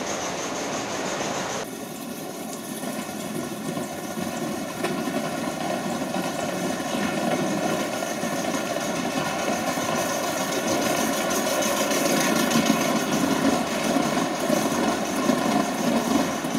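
Gauge 1 model trains running on the layout's track: a steady whirring rumble that grows louder through the middle and later part.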